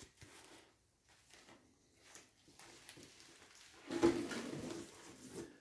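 Faint handling sounds, then from about four seconds in a louder rustle and scrape of cardboard, paper and packing as a hand rummages in a cardboard box.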